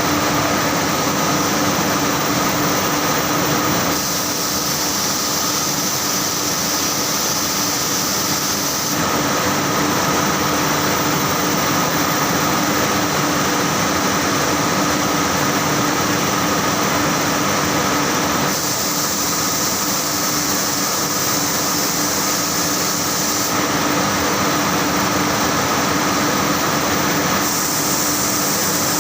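Saurer JSC 330 textile carding machine running, a loud steady mechanical hum and whir with a constant drone. The mix shifts abruptly every few seconds.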